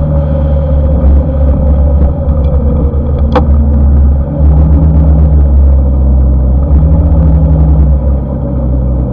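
Riding noise on a Honda ADV150 scooter: wind buffeting the action camera's microphone at road speed, with the scooter's engine running underneath. One sharp click about three and a half seconds in.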